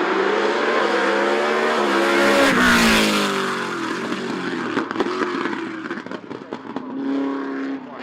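Opel Kadett C hillclimb car's four-cylinder engine at high revs passing close by. The pitch climbs, peaks loudest about three seconds in, then drops and fades as the car goes away up the course. Near the end a rising engine note comes in again.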